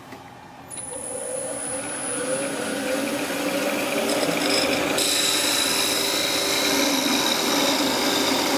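Wood lathe starting up, its pitch rising as it comes up to speed, then a parting tool cutting into the spinning wood to part a goblet off at its base with a steady scraping.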